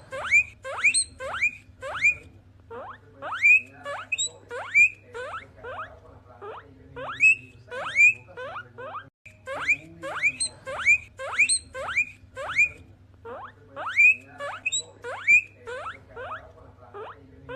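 Guinea pigs wheeking: a run of short, sharply rising squeals, about two a second, with a few brief pauses and a short break about nine seconds in. A faint steady hum lies underneath.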